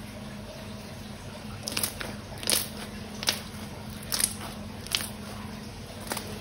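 Slime being squeezed and worked by hand, giving about six sharp, wet crackling pops spaced irregularly through the middle and end, over a steady low hum.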